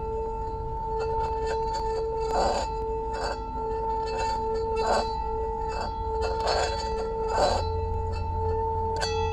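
Metal singing bowl rubbed around its rim with a wooden striker: a steady, slightly pulsing ringing hum, with irregular clicks and scrapes of the wood against the rim. Near the end a sharper click sets higher overtones ringing as well.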